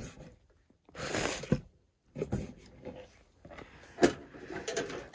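Separate scrapes, knocks and sharp clicks of gear being handled. Near the end come the clicks of the plastic latches on a camp stove's carry case being undone.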